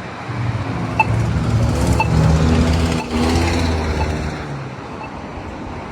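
A motor vehicle's engine passes, loudest two to three seconds in. Beneath it a Polara iNS2 accessible pedestrian push button's locator tone ticks about once a second.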